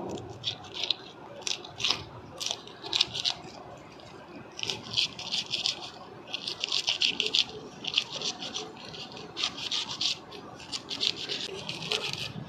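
A knife cutting the scales off a large catla fish, lifting them away with the top of the skin: short scraping strokes, a few spaced ones at first, then a dense run from about four and a half seconds in.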